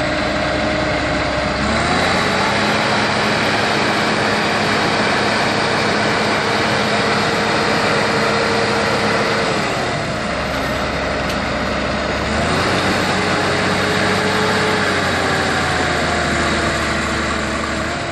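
Heavy diesel engine working, its speed rising about two seconds in, dropping back around ten seconds, rising again a couple of seconds later and easing down near the end.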